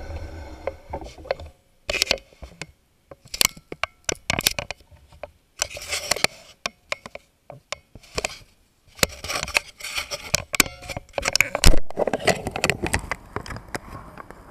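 Handling noise close to the camera microphone: irregular clicks, knocks and short scrapes with brief quiet gaps between them. One knock about twelve seconds in is the loudest.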